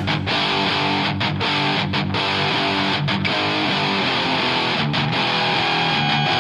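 Recorded heavy music: a distorted electric guitar riff with several brief stops between chords, and no vocals.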